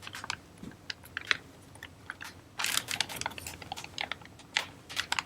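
Plastic bag and cardboard packaging handled and crinkling as a battery pack is unwrapped: scattered small clicks and rustles, with a short burst of crinkling about two and a half seconds in and another near four seconds.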